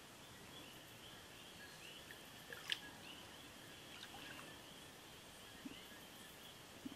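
Faint tropical forest ambience at a pool: a steady high-pitched chorus of wildlife, with a sharp drip or small splash of water about halfway through and a few lighter ones after.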